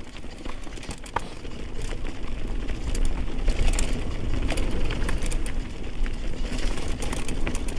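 Mountain bike riding down a rocky rock-garden section of trail: a continuous clatter of tyres and frame rattling over rocks and roots, with many sharp knocks over a steady low rumble.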